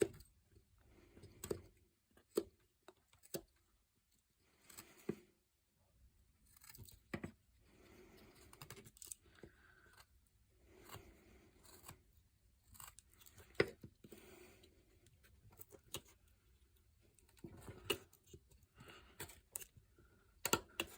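Swiss Army knife blade cutting into basswood: short, irregular slicing and scraping strokes with small clicks as chips come away, and pauses between cuts.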